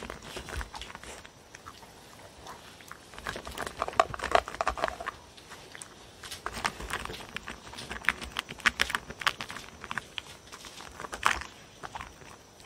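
A dog crunching dry kibble from a paper bowl: irregular runs of crisp crunches with short pauses between.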